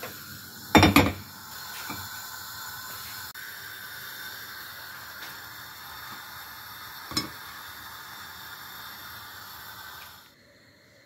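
Steady sizzling hiss of the soup pot cooking on a gas burner turned down to low, which cuts off shortly before the end. A sharp metal clatter about a second in and a single click about seven seconds in.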